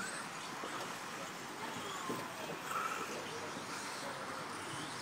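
Radio-controlled 4WD off-road buggies racing around a track: faint motor whine rising and falling in pitch as they accelerate and brake, over a steady hiss, with a few light knocks from the cars.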